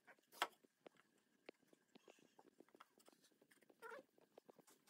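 Near silence: faint taps and light scrapes of pine boards being handled and set against each other on a wooden workbench, with a brief faint pitched sound about four seconds in.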